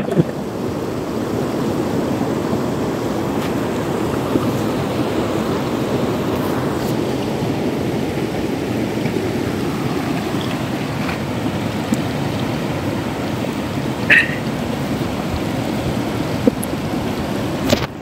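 Fast shallow river rapids rushing steadily over stones, with a short higher-pitched sound about fourteen seconds in.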